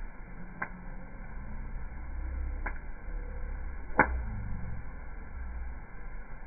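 Campfire burning with a low rumble, and three sharp pops or snaps from the wood, the loudest about four seconds in.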